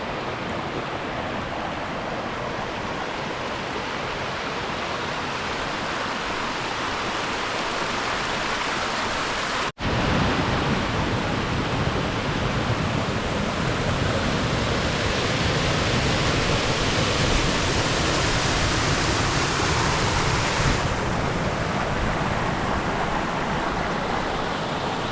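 Steady rushing of a mountain stream and waterfall, perhaps with wind on the microphone mixed in. About ten seconds in there is an abrupt cut, after which the rush is louder and deeper.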